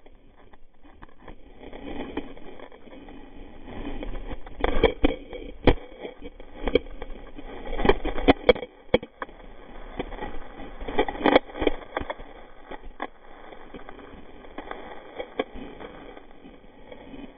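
Skis scraping and hissing through snow, then a tumbling fall heard from a camera on the skier: a scatter of knocks and thuds as body, skis and poles hit the snow, with snow scraping over the camera.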